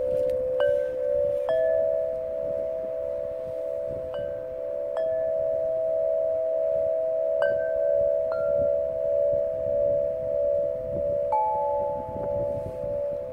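Clear crystal-glass tube chimes struck one at a time with a soft mallet, about seven strikes spread out unevenly. Each note rings on over a steady, slowly pulsing hum of the lower tubes still sounding.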